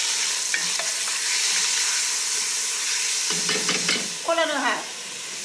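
Thin lemon slices, garlic and wild garlic sizzling in oil in a pot, a steady frying hiss with a few light knocks.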